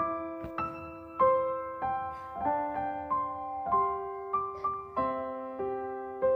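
Slow, gentle piano music: single notes and chords struck about every half second to a second, each ringing on and fading.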